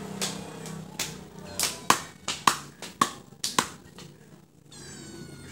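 Machete chopping into a goat leg: about eight sharp chops through meat and bone, several with a short metallic ring from the blade. A high-pitched call falling in pitch is heard near the end.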